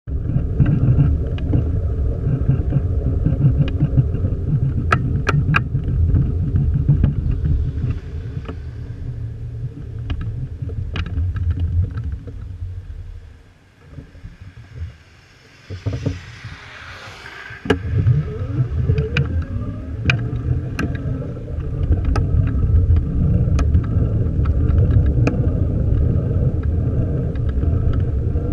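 Wind buffeting the microphone and tyre rumble from a moving bicycle, with scattered clicks and rattles from the bike over the road surface. The rumble dies away for a few seconds about halfway through, then a short hiss swells and fades before the rumble returns.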